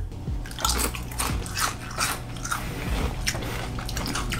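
Close-up crunching of crisp potato chips being bitten and chewed, a run of irregular sharp crunches. The chips are Lay's mac and cheese flavour, shaped like Pringles.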